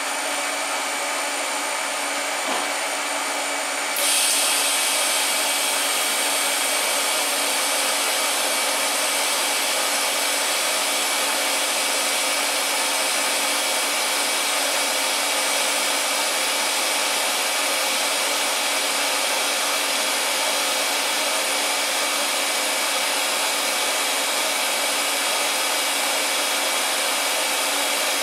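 Steady blower noise throughout; about four seconds in, a TIG welding arc strikes on a stainless steel turbo flange and adds a steady, slightly louder hiss that runs on unbroken.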